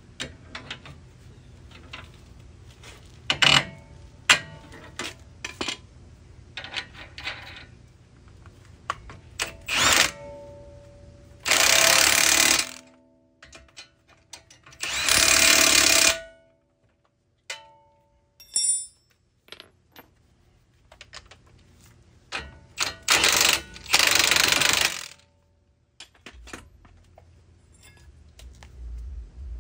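A cordless power tool runs in several bursts of a second or so on the new front strut's fasteners, with short metallic clicks and clanks of hand tools between.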